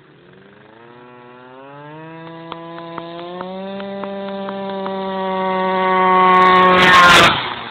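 Two-stroke Malaguti Phantom F12 scooter with a Polini 70 cc racing kit accelerating toward the microphone: the engine note climbs for a few seconds, then holds at high revs while growing steadily louder. About seven seconds in it passes close by with a brief rush of noise, and the sound drops away.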